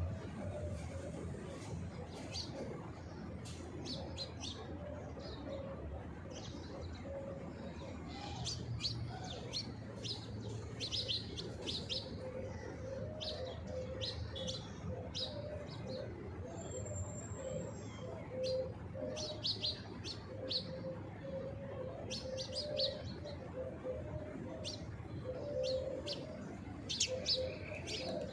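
Small birds chirping in many short, quick calls, with a pigeon cooing low underneath through most of it.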